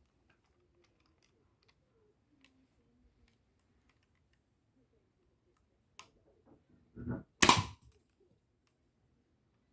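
Nerf blaster being fired: a sharp click about six seconds in, then a thump and a loud snap about seven and a half seconds in.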